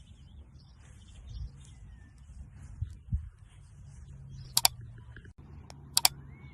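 Two sharp double clicks about a second and a half apart, over a faint low hum, with a couple of soft thumps before them.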